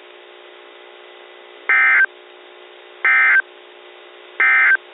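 Three short bursts of NOAA Weather Radio SAME digital data tones, a little over a second apart, over steady receiver hiss and a faint hum. This is the end-of-message code that closes the tornado warning broadcast.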